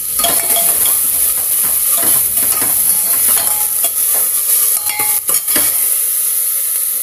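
Chopped onions and cumin sizzling in hot ghee in a pressure cooker, being stirred with a steel spoon that scrapes and clinks against the metal pot. A steady frying hiss runs under repeated spoon knocks and scrapes; the onions are being sautéed toward golden brown.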